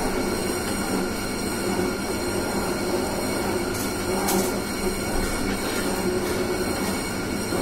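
Semi-automatic cotton wick-making machine running steadily: an even mechanical hum with several steady whining tones, high and low, from its motor and rollers. Two brief scratchy bursts come about four seconds in.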